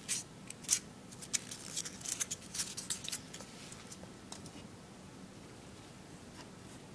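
A quick run of small clicks and rustles from gifts being handled, fading to quiet room tone about three seconds in.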